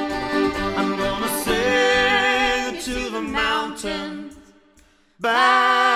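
Acoustic folk band of fiddle, accordion and guitar playing under long held vocal harmonies. The music fades to a brief pause about five seconds in, then the voices start again unaccompanied near the end.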